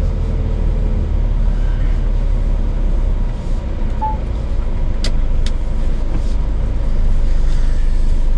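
Scania S500 truck's diesel engine running as the truck moves off slowly, heard from inside the cab as a steady low rumble that grows a little louder near the end. Two sharp clicks come about five seconds in.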